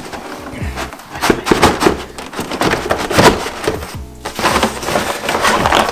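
Repeated knocks and clatter as a black slatted folding rack is handled and folded over a cardboard box, with background music.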